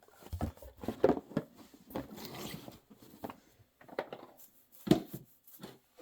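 Packaging being handled: short rustling and scraping with a few light knocks and clicks, scattered irregularly.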